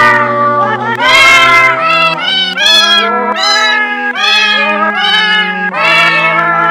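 Cat meows set to a melody, one meow per note, in a run of short notes, over held low accompanying notes.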